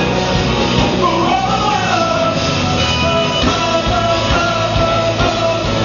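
A rock band playing live, with drums, electric guitar and a vocal line.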